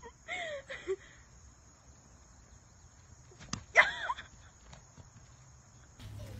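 Pony squealing while charging at a toy pony: a short squeal near the start, then a sharp knock and a much louder squeal about four seconds in.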